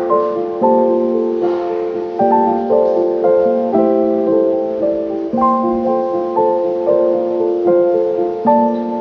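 Background piano or keyboard music: a gentle melody over held chords, with new notes struck roughly once a second.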